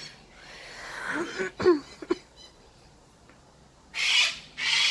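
Blue-and-gold macaw vocalizing: a few short warbling notes that fall in pitch about a second and a half in, then two short harsh, breathy squawks near the end.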